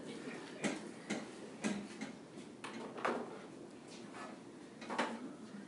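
Scattered light clicks and knocks, about five spread unevenly over a few seconds: small handling noises as the kittens are moved and set down between a box, a crate and a scale.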